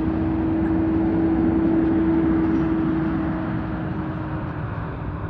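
Vehicle engine running with a steady hum that fades gradually over the last couple of seconds, as if moving away.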